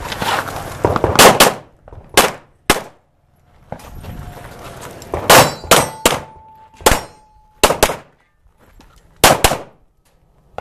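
A string of pistol shots fired at uneven intervals, about ten in all, with steel targets clanging as they are hit; one plate rings on with a steady tone for about two seconds in the middle.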